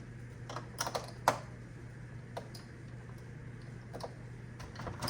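Scattered small plastic clicks and taps as the wheel module of an iRobot Roomba 690 is worked loose and pulled out, with one sharper knock about a second in.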